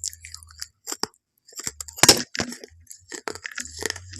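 Close-up crunching of something crisp being bitten and chewed: a run of short, sharp cracks, with one loud crack about two seconds in.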